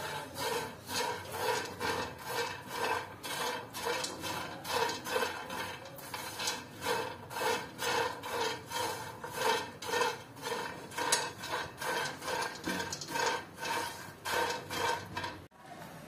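A spatula scraping and stirring nuts as they roast in a pan, in a steady rhythm of about two to three strokes a second, each with a slight ringing tone. It stops suddenly just before the end.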